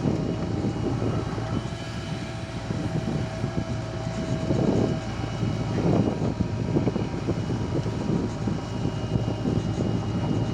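Diesel engine of a backhoe loader running steadily while working, with a constant high whine over the engine rumble that drops out for a few seconds in the middle.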